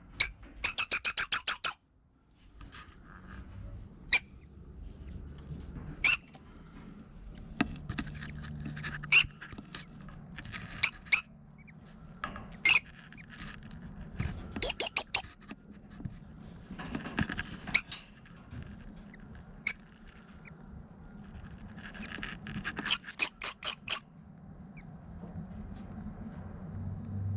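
Lovebirds calling: several quick runs of shrill, high-pitched chirps, with single sharp chirps between them.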